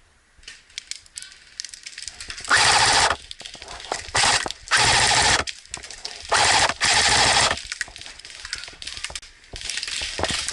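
Airsoft guns firing on full auto: several short bursts of about half a second each, with scattered single pops between them and steadier firing again near the end.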